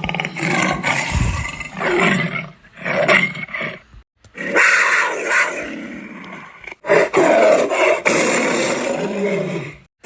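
A string of big-cat roars and snarls used as sound effects, several separate clips joined one after another with short silent breaks between them and a long roar in the middle.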